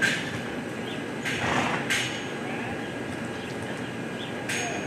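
Reining horse loping on soft arena dirt, its hoofbeats over a steady background hum of the arena, with a few short sharp noises.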